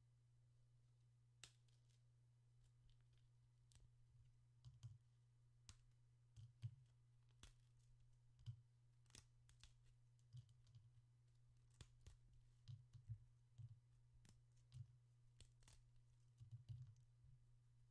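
Soft, irregular clicks and crackles as fingers pick at and crumble small dry bits inside a mortar, with the pestle resting in the bowl; a steady low hum lies underneath.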